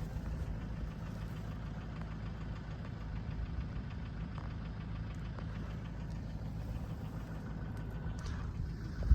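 A vehicle engine running steadily at low revs, a low, even hum.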